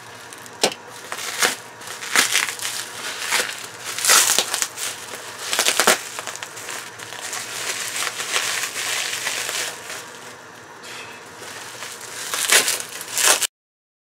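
Bubble wrap being crinkled and pulled open by hand: a steady crackling with several sharper, louder cracks. The sound cuts off suddenly near the end.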